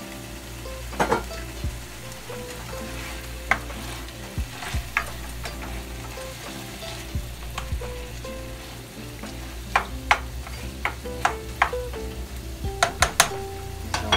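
Sliced bitter melon sizzling as it sautés in hot oil in a frying pan, stirred with a plastic spatula that clicks and taps against the pan, with a run of sharp taps in the second half.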